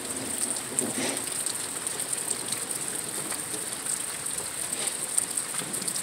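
Steady night-time outdoor ambience: a continuous high hiss with faint scattered ticks.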